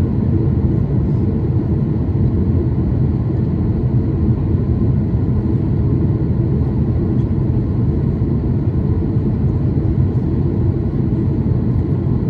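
Jet airliner cabin noise in flight, heard from a window seat: a steady low rumble of engines and rushing airflow with no change.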